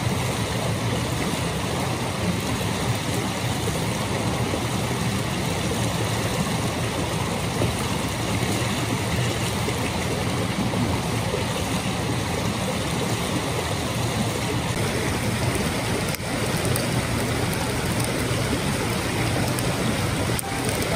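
Steady rushing of flowing water, a stream running without a break.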